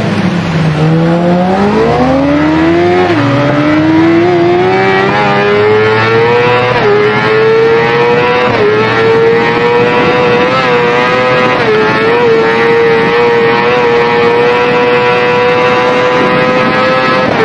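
Motorcycle engine accelerating hard, its pitch dropping low about a second in, then climbing steeply with brief dips before holding a steady high pitch for the second half.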